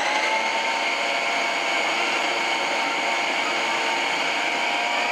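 Preethi Zodiac mixer-grinder motor running its food-processor slicing blade, shredding cabbage pressed down the feed tube. A steady high whine that rises slightly in pitch just after switch-on, then holds level.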